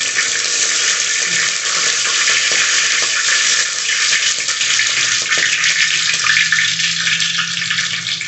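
Tempering spices dropped into hot oil, sizzling and spluttering in a pot: a loud, steady hiss with fine crackling pops.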